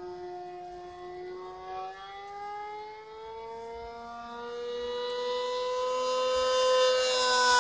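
OS .55AX two-stroke glow engine and 13x6 propeller of a Great Planes Revolver RC plane, through a Pitts-style muffler, running flat out in flight. The pitch rises slowly and the sound grows louder toward the end as the plane comes closer.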